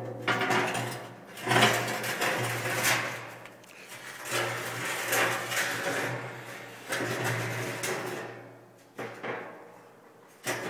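Heavy-duty expanded-metal grill racks scraping metal on metal as they are slid along their rails in a steel-tank smoker. There are several long grating slides, each a second or two, then a couple of sharp clanks near the end.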